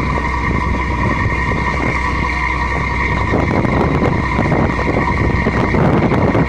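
Engine running steadily, a loud continuous drone with a constant whine and a low hum.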